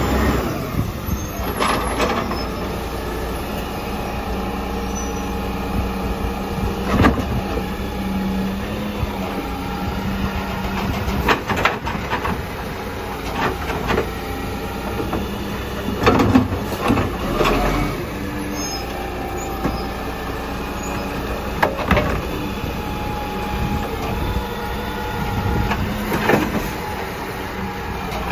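Volvo side-loader garbage truck running at the kerb while its hydraulic arm grabs a wheelie bin, lifts and tips it into the hopper and lowers it again. Clanks and knocks of the bin and arm come every few seconds over the steady engine sound.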